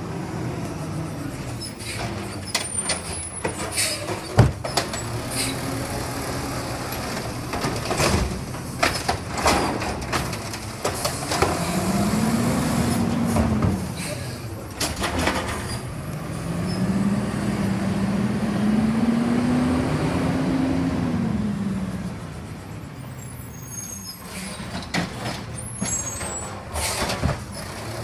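Automated side-loader garbage truck's diesel engine idling, then revving up and back down twice for several seconds at a time, with air-brake hisses and scattered clunks of the arm and carts.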